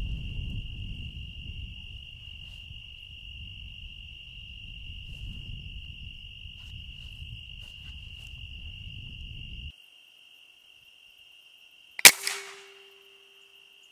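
A single shot from a .50-calibre air rifle about twelve seconds in: a sharp crack, the loudest thing here, dying away over about half a second, with a faint ringing tone lingering after it. Before the shot, crickets trill steadily over low rustling noise of movement, which cuts off about ten seconds in.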